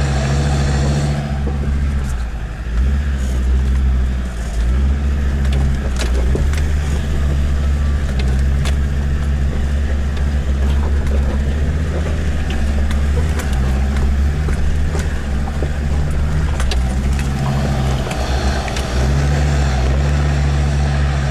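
Land Rover Discovery 2's Td5 five-cylinder turbodiesel running steadily while the vehicle crawls over a rough, rocky track, heard from inside the cabin. Scattered knocks and rattles sound over the engine.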